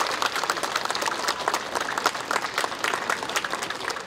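Audience applauding, many hands clapping at once, the applause thinning out near the end.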